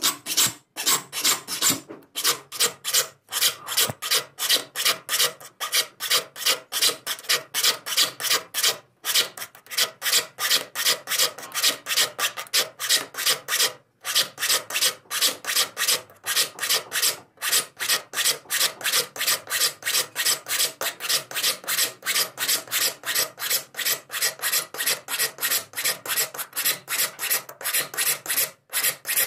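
Steel file rasping across the teeth of a hand saw in quick, even strokes, about three a second, with a few short pauses: the saw is being sharpened by hand.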